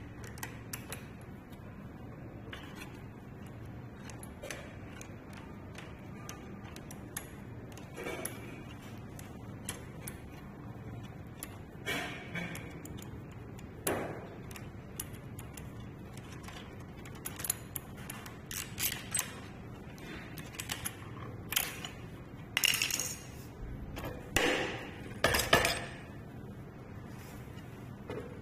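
Metal tools and small metal parts clinking and clicking against each other as they are handled, with scattered sharp taps that grow more frequent and louder in the last third, typical of taking apart a scooter's folding pole to get at its bearings.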